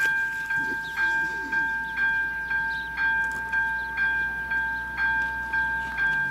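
Electronic level-crossing bell (AŽD ZV02) ringing as the crossing's red lights flash: a two-tone chime struck about twice a second, the strikes alternating louder and softer. It warns road users that a train is approaching.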